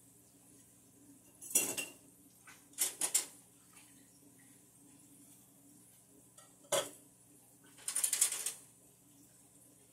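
Four short bursts of clattering and clinking of hard objects, about a second and a half in, around three seconds, near seven seconds and about eight seconds in, over a faint steady hum.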